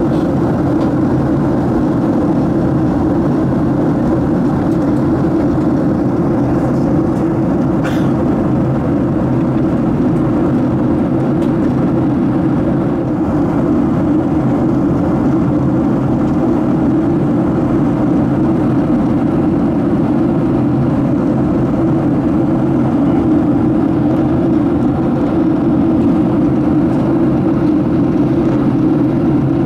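Steady cabin roar of a Boeing 737-700 in descent: airflow and CFM56-7B engine noise heard inside the cabin from a window seat, deep and unchanging. A faint click sounds once about eight seconds in.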